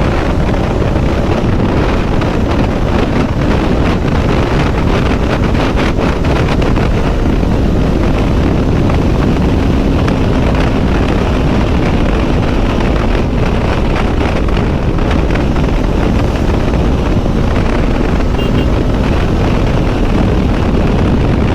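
Motorcycle under way: a steady wind rush over the action-camera mic, mixed with the engine's steady hum and road noise.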